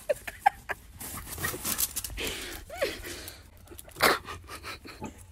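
Rustling and scraping handling noise as the phone is swung about, mixed with a person's hard breathing and a short gasp, with a louder rustle about four seconds in.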